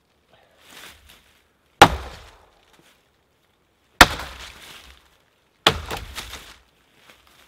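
Hatchet chopping a dry, dead ash limb: three sharp chops about two seconds apart, the last followed by a brief crackle of splintering wood.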